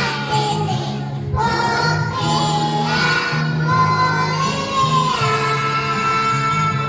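Young children's choir singing held notes in unison over an instrumental accompaniment.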